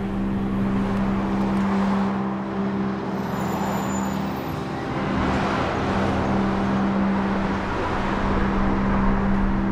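Street traffic: cars passing, their rush swelling and fading twice, over a steady low hum.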